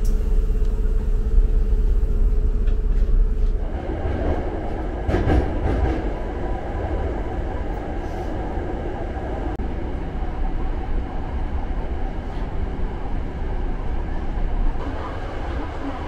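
Running noise inside a Hankyu Kyo-train Garaku commuter train car: a steady low rumble of the train under way. A steady hum stops about four seconds in and a rougher rushing wheel-on-rail noise takes over, with a short burst of clatter soon after.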